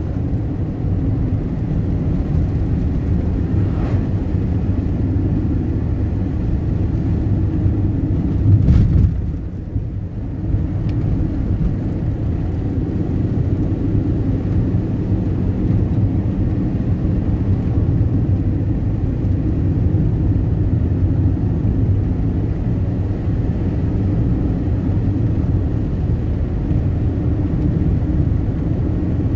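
Steady low rumble of a road vehicle driving, engine and road noise, with a brief louder swell about nine seconds in.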